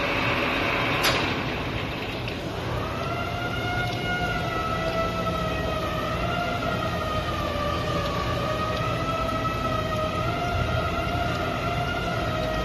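Metal lathe being stopped: a sharp click about a second in, then steady machine noise with a wavering whine that sets in after about two seconds while the chuck stands still.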